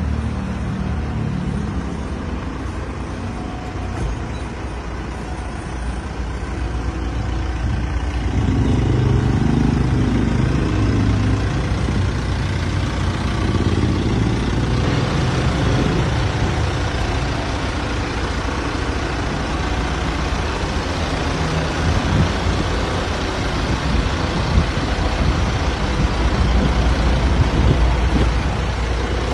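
Steady vehicle rumble of an Isuzu Elf minibus's diesel engine, with noise spread across all pitches, growing louder about eight seconds in.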